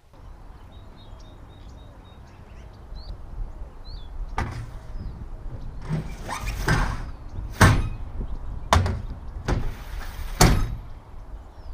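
Wooden 2x4 boards being set down and slid onto the flat roof of a box truck: a series of sharp knocks and clunks, beginning about four seconds in, several coming close together.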